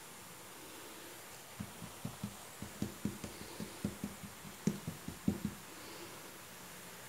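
Hands patting and pressing soft dough flat against a countertop: a run of soft, dull pats, irregular, about three or four a second, starting a second and a half in and stopping about two seconds before the end, over a faint steady hiss.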